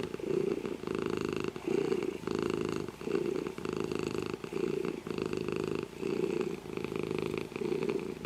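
Domestic cat purring, a continuous purr that pulses with its breathing, with a short break roughly every three-quarters of a second.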